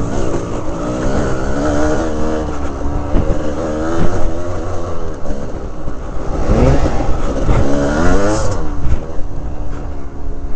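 Kawasaki KDX200 two-stroke dirt bike engine, heard from the rider's helmet camera. The revs rise and fall over and over as the throttle is worked.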